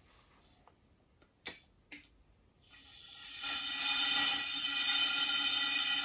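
Two small clicks, then a little under halfway through a butane gas canister starts hissing as butane is squirted into a small tube: a steady hiss with a whistling tone.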